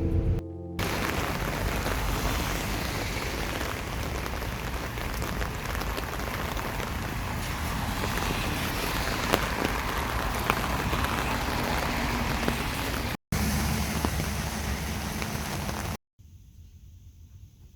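Steady rain: an even hiss with scattered faint drop ticks. It breaks off abruptly near the end, giving way to a quiet room.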